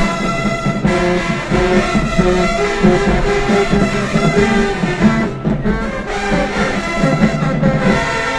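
High school marching band playing a brass-heavy tune in the stands, with loud low brass underneath, cutting off near the end.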